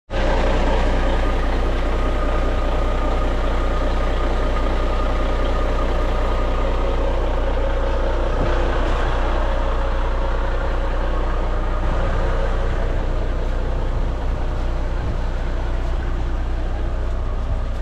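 Vintage Scania Vabis truck's diesel engine idling steadily.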